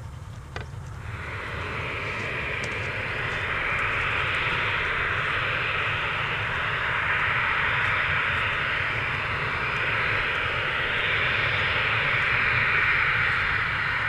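Boeing 737 jet engines running with a loud, steady whining rush, growing louder over the first few seconds and then holding, over a low rumble.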